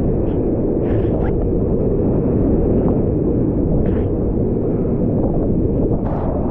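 Class IV whitewater rushing loudly around a kayak, a steady churning roar with sharper splashes about a second in, near four seconds and just after six seconds.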